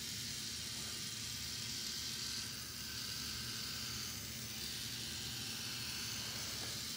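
Small battery-powered K'Nex motor running steadily, driving the plastic gearing of a model carnival ride with an even whir.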